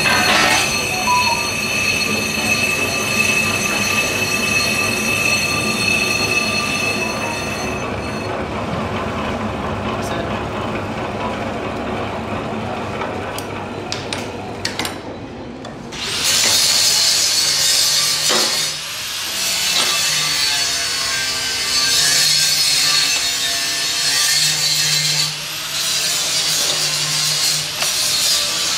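Brake disc spinning in a lathe while the cutting tool skims its braking face. For the first several seconds there is a steady high-pitched ringing over the cutting noise, then a quieter stretch. From about halfway in comes a harsher, hissing scrape of the cut.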